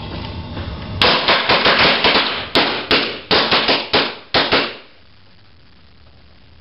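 A string of firecrackers going off in a rapid, irregular run of sharp bangs for about four seconds, then stopping.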